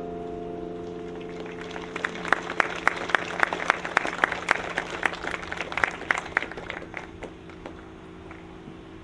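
The last tones of the bells dying away, then an audience clapping for several seconds, the applause thinning out and fading near the end.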